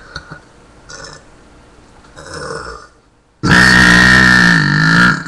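A person's long, loud deliberate burp that starts suddenly about three and a half seconds in and lasts nearly two seconds, its pitch dipping near the end.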